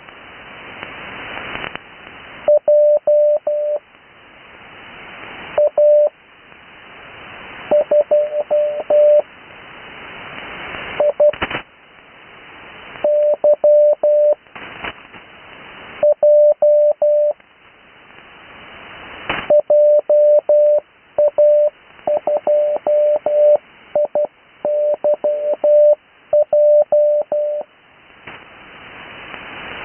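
Morse code (CW) practice on the 80 m amateur band, heard through a receiver: a steady tone keyed into dots and dashes, with band hiss that swells up in each gap between characters. The characters are widely spaced (Farnsworth spacing) for the first two thirds, then come close together with normal spacing near the end.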